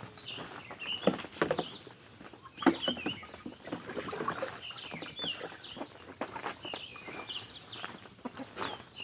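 Birds, likely farmyard fowl or chicks, chirping repeatedly in short twisting calls, with a few sharp knocks or rustles, the loudest about a second in, at one and a half seconds, and near three seconds.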